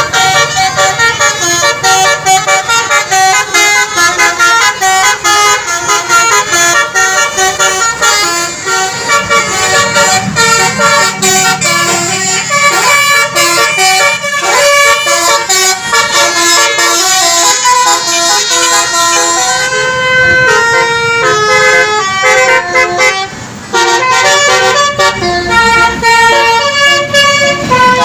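Basuri multi-tone 'telolet' bus horn playing a fast melody of short, stepping notes, with a brief break about 23 seconds in.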